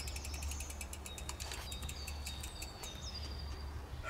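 Mountain bike rear hub freewheel ticking as the wheel turns without pedalling: a fast even run of clicks, about ten a second, that slows and stops before halfway. Birds chirp in the background.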